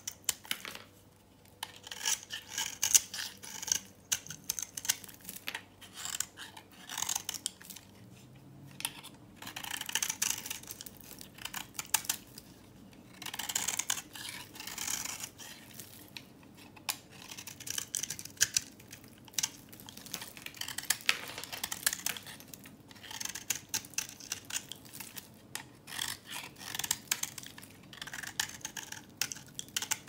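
A knife blade shaving thin curls off a hard, dry bar of vintage soap, the flakes crackling and crunching as they break away. Repeated strokes of a second or two, about one every two seconds, with short pauses between.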